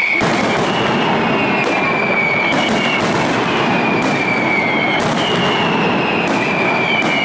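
Fireworks barrage: a dense, continuous crackle and rumble of bursting shells, with sharp bangs about once a second and a high whistle falling in pitch again and again.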